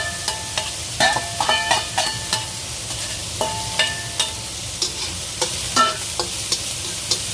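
Onions and garlic sizzling in a hot wok with a steady hiss, while a spatula stirs them and scrapes and clinks against the pan in irregular strikes, some leaving a short metallic ring.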